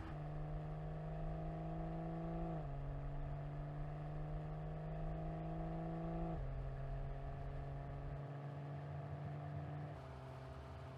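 BMW M440i's turbocharged 3.0-litre straight-six under light acceleration: the engine note climbs slowly, drops at an upshift about two and a half seconds in and again about six seconds in, then holds steady before dropping once more near the end.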